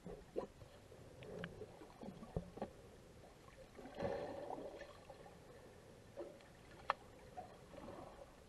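Muffled underwater sound picked up through an action camera's waterproof housing: a low wash of water with scattered sharp clicks and knocks, and a swell of gurgling water about four seconds in.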